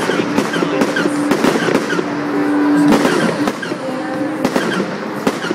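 Fireworks going off in a rapid series of sharp bangs and crackles, over the chatter of a crowd.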